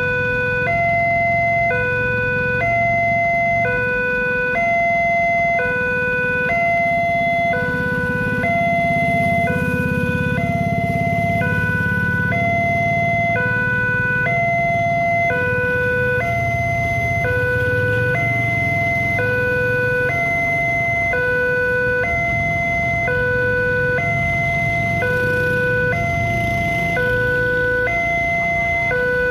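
Railway level-crossing warning alarm of the Indonesian type, sounding a steady electronic two-tone pattern: a lower and a higher tone alternating about once a second, on and on, while the crossing is closed. A low rumble runs underneath.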